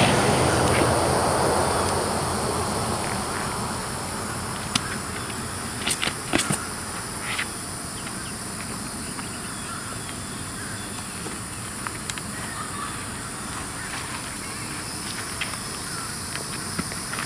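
Outdoor ambience with a steady high-pitched insect chorus. A low rumble fades out over the first few seconds, and a few sharp clicks come about five to seven seconds in.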